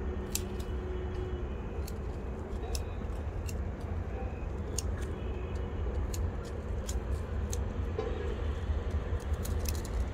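Hand pruning shears snipping dry plant stalks: a dozen or so sharp, separate clicks at uneven intervals, over a steady low rumble.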